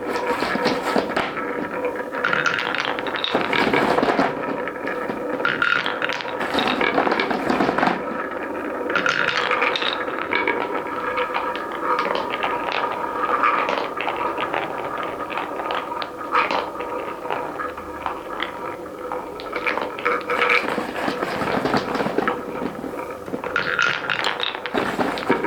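Colored balls rolling and clattering down a wooden marble run track: a continuous busy rattle of small clicks and knocks.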